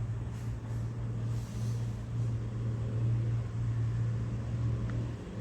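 A steady low hum, with two faint brief rustles, about half a second and a second and a half in.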